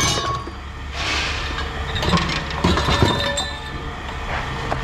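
Scrap metal clattering and clanking as pieces are handled and dropped, with irregular knocks throughout over a steady low engine rumble.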